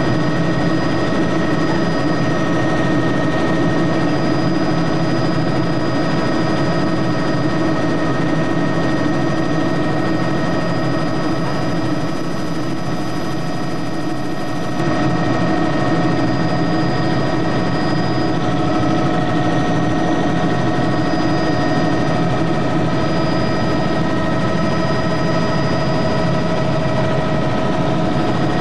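Helicopter engine and rotor noise heard from inside the cabin: a steady drone with constant high whining tones. It drops slightly in level for a few seconds about halfway through, then comes back with its tones a little changed.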